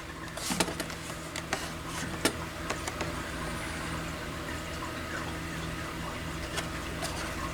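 Small plastic clicks and handling noise from a Potter SH-1224 horn/strobe being fitted back together, a few clicks in the first two and a half seconds and then quieter fiddling, over a steady low hum.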